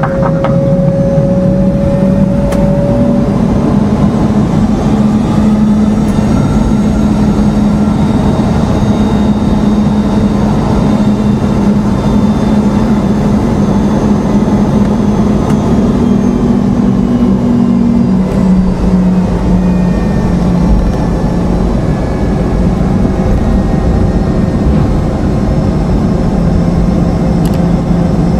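Boeing 717-200's Rolls-Royce BR715 turbofan engines roaring at takeoff thrust: a loud, steady roar with a low droning tone and fainter high whines.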